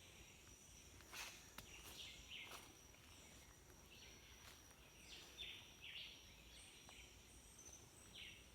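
Near silence of the bush: a faint, steady high insect drone with short chirps repeating every second or so, and a few soft clicks in the first few seconds.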